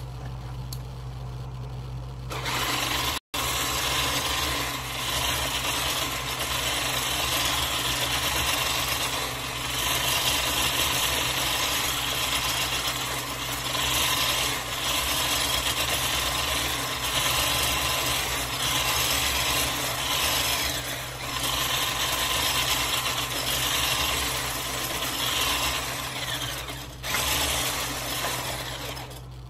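Electric hand mixer running steadily, its beaters whisking egg batter in a glass bowl. It starts about two seconds in and dips briefly a few times.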